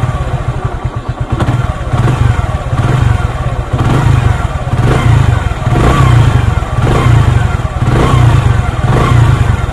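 Motorcycle engine revved in short throttle blips, about one a second, with the timing chain tensioner just tightened to take up a loose chain. The owner finds it running smoothly, with the rattle gone, as it ran when the bike was new.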